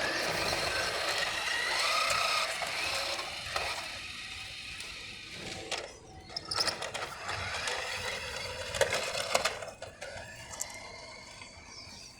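Small electric motors and plastic gearboxes of two toy radio-controlled cars whirring as they race off, with the pitch rising and falling. Loudest over the first few seconds, then fading, with a few clicks and rattles.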